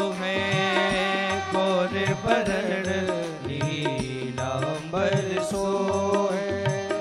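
Live Hindu devotional bhajan music: a gliding melody over a steady drone, with low drum strokes keeping a repeating rhythm.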